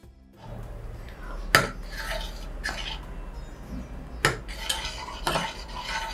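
A spoon stirring liquid payasam in a cooking pot, scraping round the pot with about four sharp clinks against its side.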